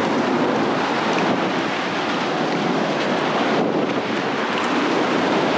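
Ocean surf washing in and breaking against a concrete seawall, with wind buffeting the microphone: a steady rush of water and wind.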